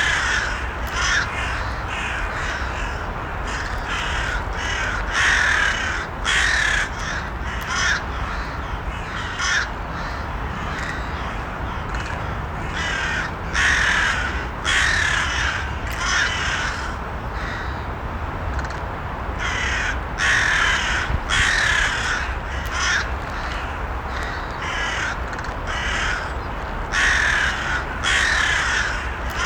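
Crows cawing repeatedly, often several calls in quick succession, over a steady low background rumble.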